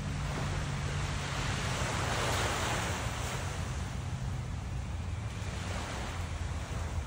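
Small surf breaking and washing up the sand, swelling to a peak about two seconds in and then easing off, over a steady low rumble.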